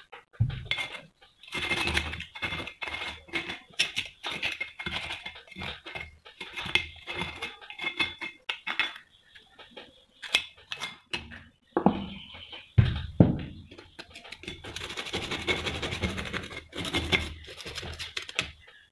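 Hands handling and rubbing heavily rusted metal parts: scratchy scraping of crumbling rust, with many small clicks and a few louder metal knocks.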